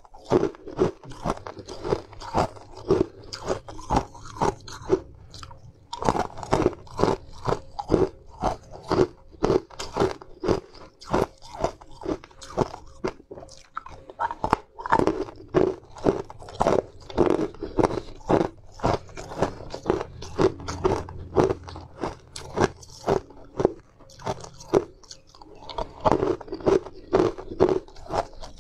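Hard sweet ice being bitten and chewed, with sharp crunches coming about twice a second and two brief pauses between mouthfuls.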